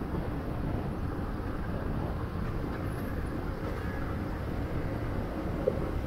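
Steady rumble of riding a motorcycle in road traffic, mostly wind and road noise with no clear engine note. A single short, sharp sound stands out near the end.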